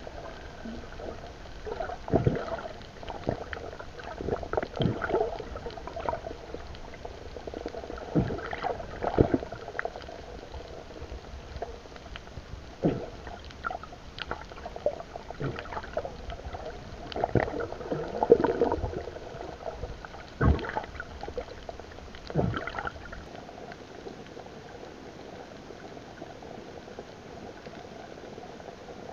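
Muffled water sloshing and gurgling bubbles picked up by a submerged action camera, in irregular surges with knocks, until about three-quarters of the way through, when it settles to a quieter, steady wash.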